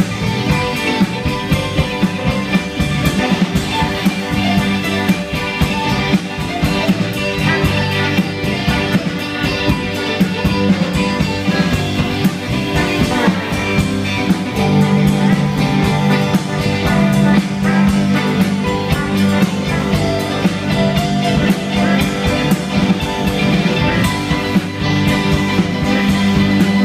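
A live rock band playing a loud instrumental passage on drum kit, electric bass, pedal steel guitar and electric keyboard. Heavy held bass notes come in about halfway through.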